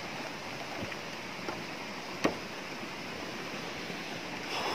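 Steady rushing of a mountain stream flowing under the bridge, with a few light knocks from footsteps on the wooden plank deck.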